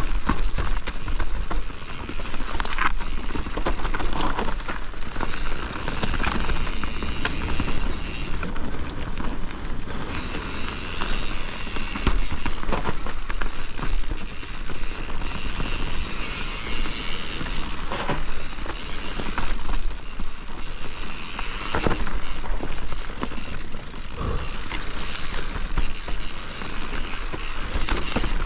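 Privateer 161 enduro mountain bike descending a dirt trail at speed: tyres rumbling over ground, roots and rocks, with the chain and drivetrain rattling and sharp knocks from impacts throughout, and a high freehub ticking that drops out briefly a few times.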